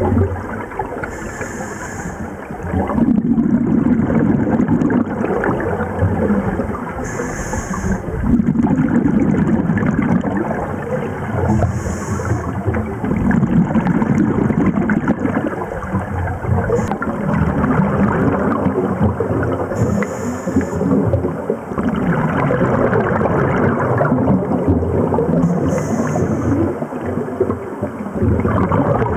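Scuba diver breathing through a regulator underwater, five breaths in all. Each breath is a short hiss of the inhalation followed by a long gurgling rush of exhaled bubbles.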